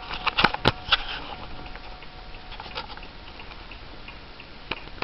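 Gustav Becker Napoleon mantel clock: a faint ringing tone, the tail of its strike, fades away over the first three seconds. Over it, a burst of irregular clicks and knocks comes about half a second to a second in, then scattered lighter clicks.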